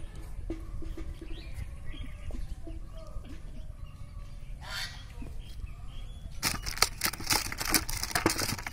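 Faint short bird calls over a low rumble, then from about six and a half seconds in a loud, dense crackling rustle.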